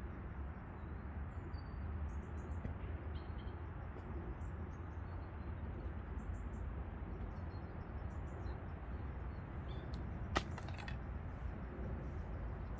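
Faint, scattered bird chirps over a steady low rumble, with a single sharp click about ten seconds in.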